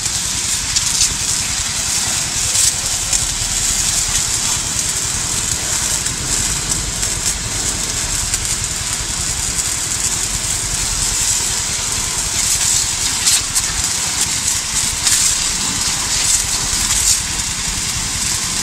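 Small engine-driven power sprayer running steadily, with the hiss of its high-pressure water jet as it douses smouldering burnt bamboo.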